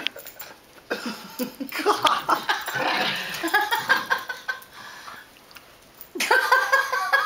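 An Italian Greyhound and a miniature dachshund play-fighting, vocalising with high whines and yelps. A louder burst of high yelping starts about six seconds in.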